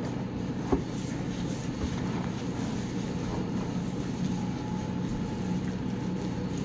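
Steady low mechanical hum of commercial kitchen equipment, with one light click a little under a second in.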